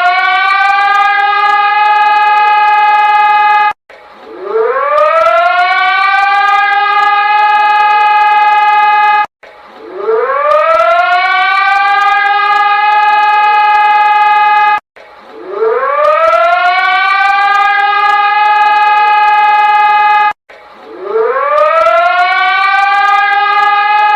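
Emergency alert alarm siren tone that winds up in pitch over about two seconds, holds steady, then cuts off abruptly. The cycle repeats about every five and a half seconds, four times over.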